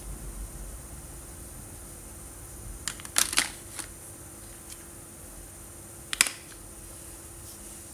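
Sharp clicks and taps of coloring markers being handled and set down: a quick cluster about three seconds in and a double click about six seconds in.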